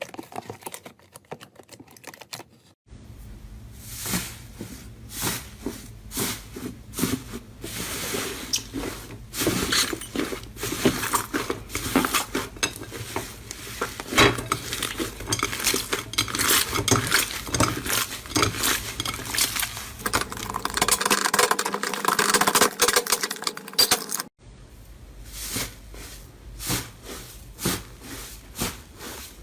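Slime being worked by hand, making dense, rapid clicking and crackling pops. The sound changes abruptly a few seconds in and again near the end.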